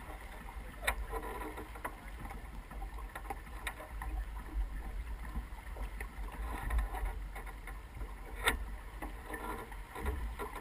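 Water rushing along the hull of an S2 9.1 sailboat under way, with a steady low rumble of wind on the microphone. Three short sharp clicks or knocks from the boat stand out, the loudest about eight seconds in.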